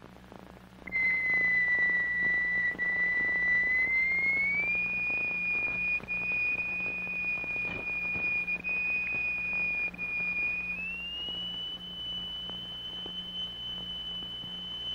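A single pure, whistle-like tone from the sound generator driving a vibrating cymatic medium. It starts about a second in and glides up to a higher note twice, a little after four seconds and again near eleven seconds; each higher note brings a more complicated figure. A low hum runs beneath it.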